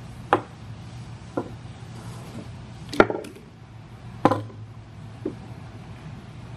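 Five sharp wooden knocks, a second or so apart, as a muzzleloading rifle's barrel is worked loose and lifted out of its wooden stock, over a steady low hum.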